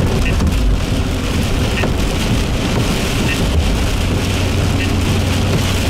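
Heavy rain and strong wind in a thunderstorm: a loud, steady rushing noise with a low rumble underneath.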